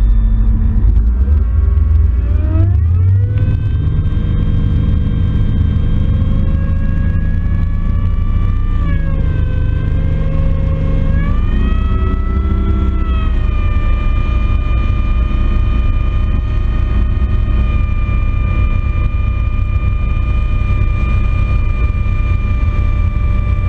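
Mercury Verado outboard driving a bass boat, heard from right at the motor, with a deep rumble under the engine note. It climbs in pitch as the boat gets going a couple of seconds in, dips and climbs again around the middle, then settles into a steady cruising run.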